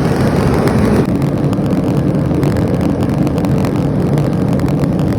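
A forge running: a loud, steady rumble with a low hum under it.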